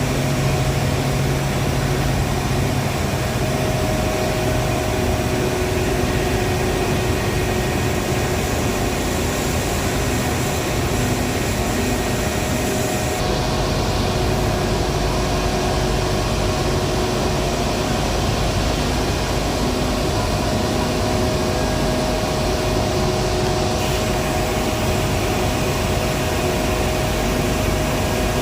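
Steady industrial machinery noise: a constant roar with several steady humming tones running through it. The higher part of the noise changes abruptly about 13 and 24 seconds in, as if to a different machine.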